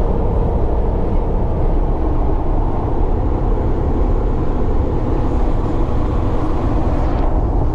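Inside the hard-top cab of a 1998 Jeep Wrangler TJ cruising at highway speed on 35-inch tyres: a loud, steady drone of the 4.0-litre inline-six engine, tyre roar and wind.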